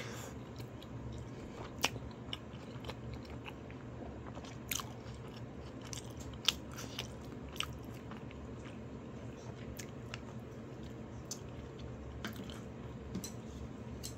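A person chewing crunchy fried rice close to the microphone, with scattered sharp crunches over a steady low hum.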